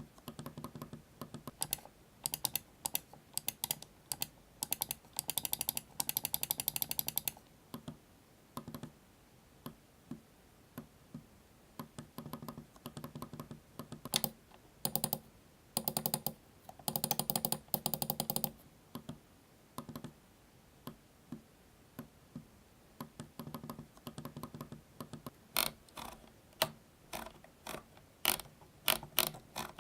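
Computer mouse buttons clicking one press at a time, with quick runs of ratcheting ticks from scroll wheels being turned, recorded up close at high gain. Several runs of rapid ticks come about 5 and 17 seconds in, and sharper, louder clicks come near the end.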